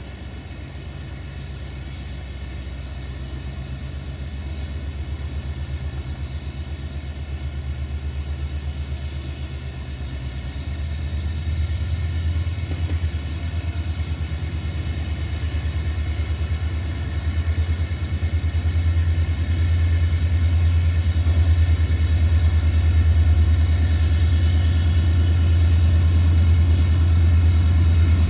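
Diesel locomotive of CFR Class 64 ('Jimmy') pulling a passenger train out of the station, its engine giving a steady low drone that grows louder as it approaches. The engine steps up in loudness about a third of the way in.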